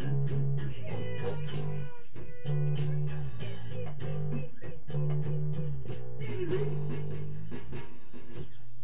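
Live band jamming an instrumental passage: long low bass notes that change every two seconds or so, with higher melodic lines and a few bent notes above.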